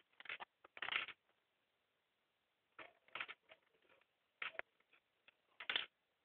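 A cockatiel picking at and knocking about its small plastic toys and sticks on a wooden surface: about five short, faint clattering rattles.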